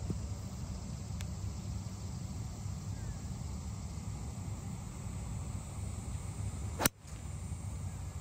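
A 3-wood striking a golf ball off the fairway: one sharp crack about seven seconds in, over a steady low rumble.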